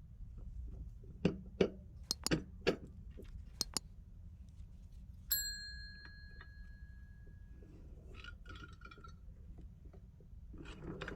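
Small metal prong snap button parts clicking and clinking as they are handled and fitted together, with one short bright metallic ping that rings for a moment about five seconds in.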